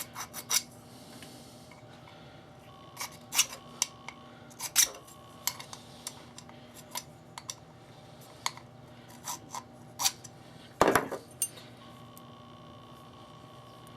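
Irregular light metallic clicks, clinks and short scrapes as the small metal piece of a window sash latch is filed at its edges and handled, with a louder knock about eleven seconds in.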